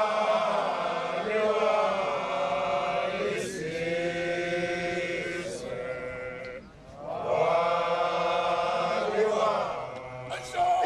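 A group of voices chanting a Zulu song in two long, drawn-out phrases, with a short break about six and a half seconds in.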